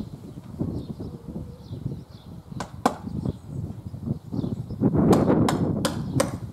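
Gusty wind rumbling on the microphone, swelling to a strong gust near the end, with sharp knocks from work on the PVC roof trim: a pair about two and a half seconds in and a quick run of four or five near the end.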